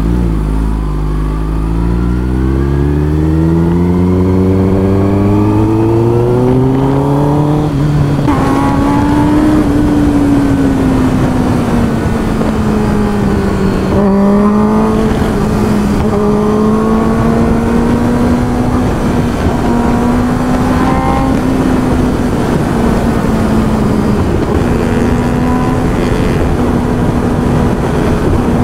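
Kawasaki ZX-10R's inline-four engine under way: it pulls up through the revs for about eight seconds, breaks off at a gear change, then runs at a fairly even speed with small rises and falls in pitch.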